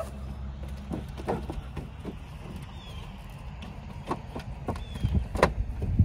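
Puppies' paws stepping and scrabbling on a metal sheet and cinder blocks: scattered, irregular knocks and scuffs, the loudest about five and a half seconds in, over a low steady rumble.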